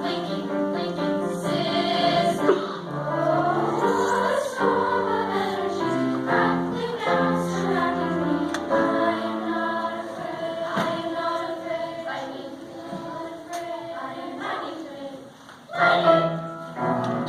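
A choir singing with musical accompaniment, in long held notes in several voices. Near the end the music falls away briefly and comes back loud.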